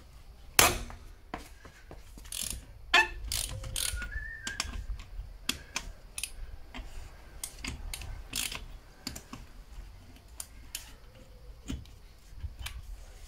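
Ratchet wrench clicking in irregular runs as stubborn, over-tightened bolts are worked, with a couple of sharp metallic clicks louder than the rest, about half a second and three seconds in.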